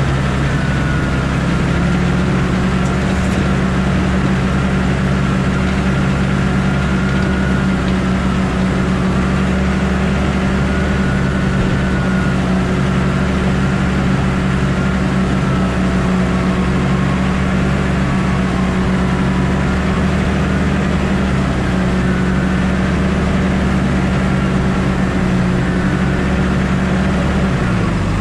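A Valtra T174D tractor's six-cylinder diesel engine runs steadily under load as it pushes an articulated snow plough through deep snow, heard from on board. A faint wavering whine sits above the engine note.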